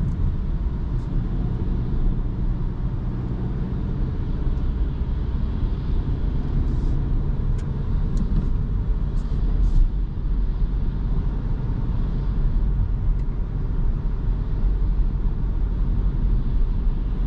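Kia Rio's 1.2-litre four-cylinder petrol engine running steadily under light load, heard from inside the cabin together with tyre and road rumble. A few faint clicks come near the middle.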